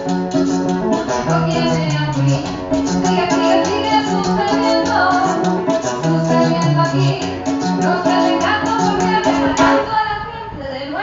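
Live acoustic guitar music, strummed in a steady rhythm. The strumming thins out briefly about ten seconds in.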